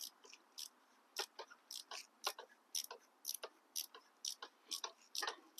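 Ratchet wrench clicking, about two sharp clicks a second, as an exhaust header fastener is backed out.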